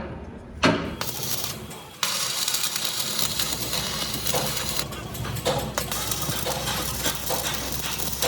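Steel fabrication noise: a sharp metal knock just under a second in, then about two seconds in a loud, harsh hiss with crackling starts suddenly and runs on steadily, the sound of a tool working steel plate.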